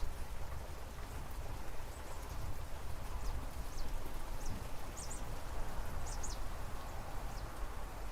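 Steady rain falling, with a bird giving a few short, high, downward-sliding chirps in the middle of the stretch.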